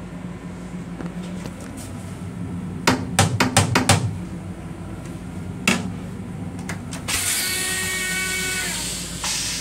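A quick run of sharp knocks as the seat lid of an M7 railcar toilet is handled, then the toilet flushes about seven seconds in with a loud rushing hiss and a few steady whistling tones, easing off and surging briefly again near the end. The railcar's steady low hum runs underneath.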